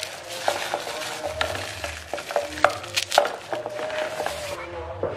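A plastic bag of frozen ice knocking and rubbing against the wall of a plastic pitcher of green drink as it is pushed in, a scatter of sharp clicks and knocks over a steady hiss.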